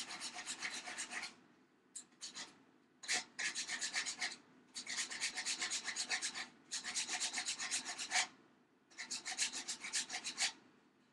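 Rapid back-and-forth hand-filing strokes, several a second, grinding down the bottom edge of a small wooden cat-door frame. The filing comes in runs of a second or two, broken by short pauses and a couple of single scrapes.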